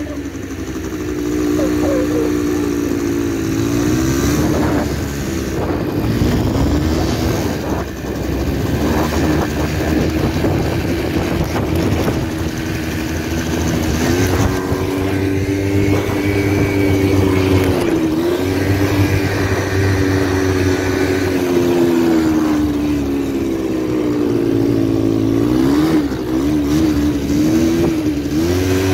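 Quad bike (ATV) engine running under load, its pitch rising and falling repeatedly with the throttle as it rides over sand dunes, with a few quick dips near the end.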